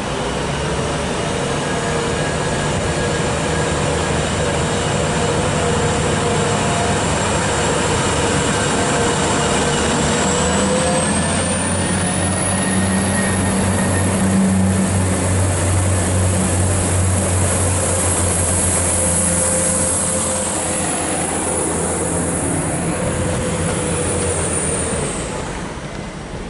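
Class 175 diesel multiple unit pulling out and accelerating away. A steady low engine drone is joined by a high whine that rises about 11 seconds in, holds, and fades as the train draws away near the end.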